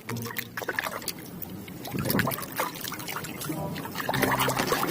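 Water trickling and splashing as a muddy plastic toy animal is rinsed and washed, with many small irregular splashes.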